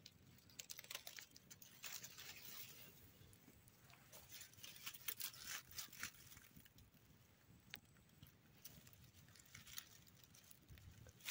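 Faint, scattered crackling and rustling of dry leaves and grass stems being brushed and handled.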